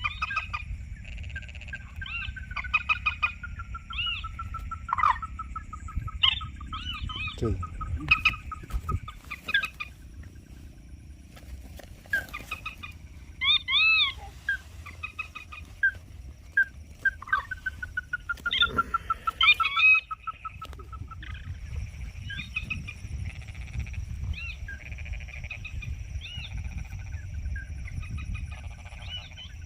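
Common moorhen calling: repeated short clucks and runs of quick notes that drift slightly downward in pitch, over a steady low background noise.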